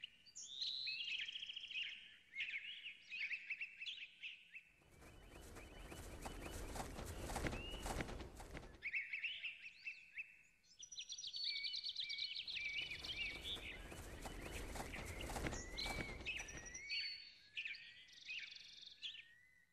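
Small birds chirping and calling repeatedly in a forest ambience, with two stretches of a rushing noise a few seconds long, the first about five seconds in and the second around the middle.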